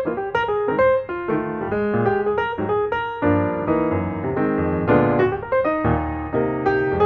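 Background piano music: a continuous run of struck notes and chords.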